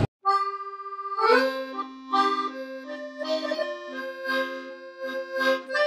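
Background music in a Parisian style: an accordion opens on one long note, then from about a second in plays a melody of shorter notes over a held low note.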